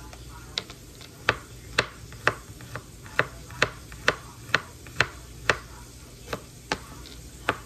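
Chef's knife chopping garlic cloves on a cutting board: a run of sharp knocks about twice a second, with a brief pause shortly before the end.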